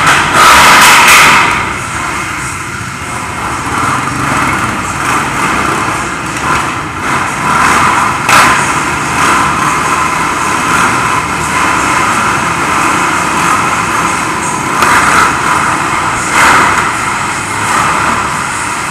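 Sport quad (ATV) engines revving hard inside a concrete-floored hall. There is a loud burst of revving at the start and sharp rev peaks about 8 seconds in and twice more near the end, over steady engine noise.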